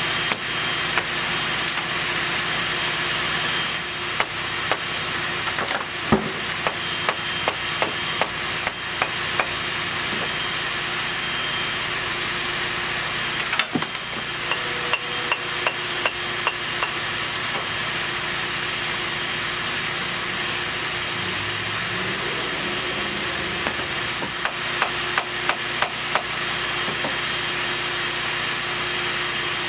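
Bursts of quick hammer blows, a few a second, over a steady motor hum.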